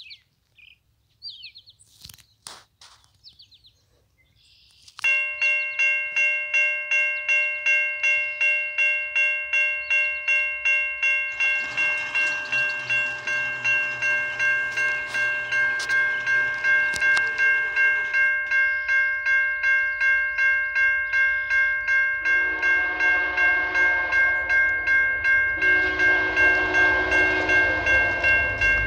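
Railway crossing bell starts about five seconds in, ringing steadily at about two strikes a second. From about halfway a rumble builds as a VIA Rail passenger train approaches, and near the end its horn sounds two long blasts for the crossing.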